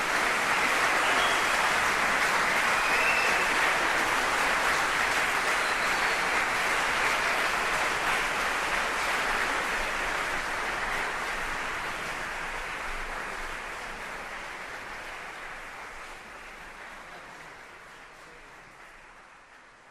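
Audience applauding, steady at first, then gradually fading away over the second half.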